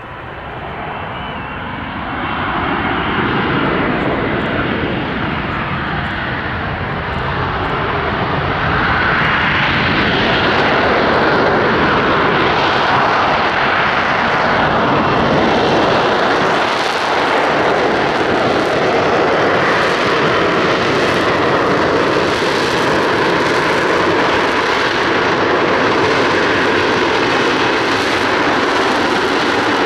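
Jet noise from an F-35B Lightning II's F135 engine, growing louder over about the first ten seconds and then holding steady and loud.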